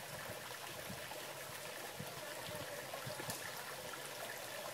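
Low, steady trickle of running water with no break.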